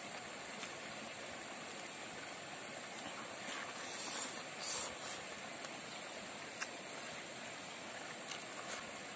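Eating by hand: soft mouth clicks and a louder bite and chew of omelette about four to five seconds in, over a steady background hiss.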